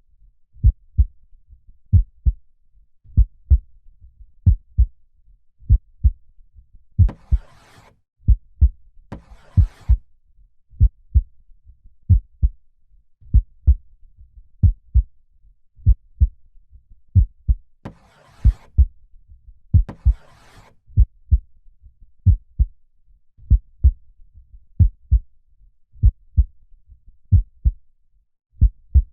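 Slow heartbeat, each beat a double thump (lub-dub), coming evenly about 45 times a minute. Over it come two slow breaths, each in and out, about seven seconds in and again near eighteen seconds.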